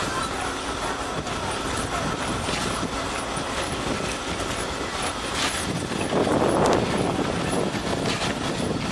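A small steam tank locomotive moving slowly past with steam hissing. Louder steam puffs come about five and a half to seven seconds in as it draws near.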